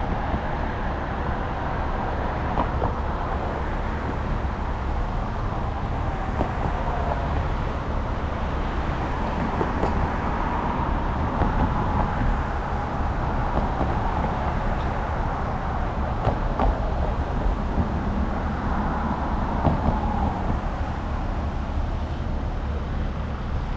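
Steady vehicle and road noise: a constant low rumble with a faint wavering whine over it.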